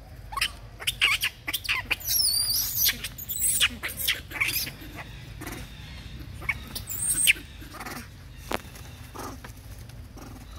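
Long-tailed macaques squealing and screeching in a run of short, high, wavering calls, thickest in the first half and flaring again about seven seconds in.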